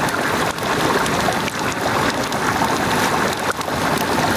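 Wind rushing and buffeting against the microphone, a loud uneven noise, with a few light clicks of cutlery.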